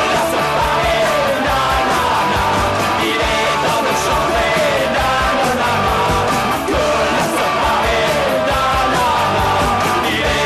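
Punk rock song playing with a steady, driving beat.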